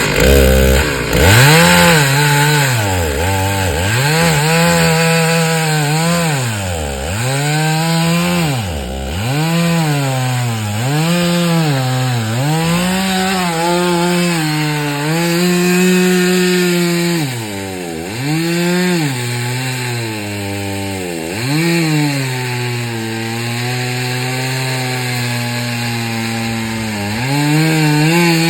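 Two-stroke chainsaw cutting wood. Its engine pitch drops and climbs back again and again as the chain bites, then holds a steadier, lower pitch under load through the second half.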